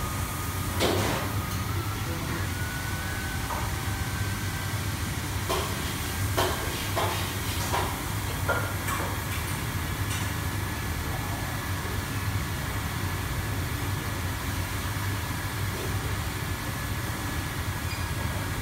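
Steady low rushing noise of a commercial kitchen's exhaust hood and wok stove, with several sharp metal clanks from a wok and utensils, mostly in the first half.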